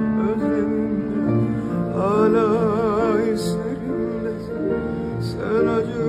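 A man singing with a wide vibrato, accompanied by a grand piano. Sung phrases come about two seconds in and again near the end, with held piano chords between them.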